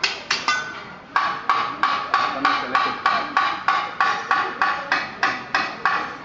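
Teppanyaki chef's steel spatula and fork clanking in a show routine: a few quick metallic clanks, a short pause, then a steady rhythm of about three to four ringing clanks a second.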